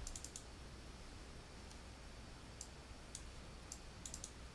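Computer mouse button clicking: a quick cluster of clicks at the start, then single clicks about half a second apart, and another quick cluster near the end, over a faint low hum.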